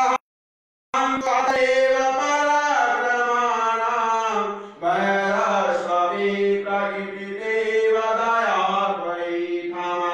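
A voice chanting a devotional hymn to a sung melody, with long held notes that glide between pitches. The audio drops out to complete silence for just under a second right at the start.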